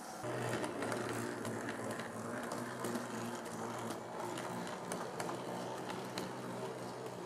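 HO-scale model train running close by: a steady hum from its motor and gears with irregular clicks of the wheels over the track joints, starting abruptly just after the opening.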